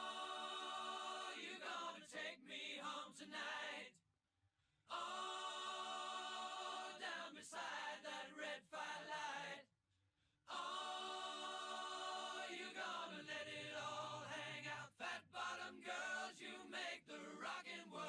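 Choral singing without instruments, in long held chords; it breaks off twice into silence for about a second.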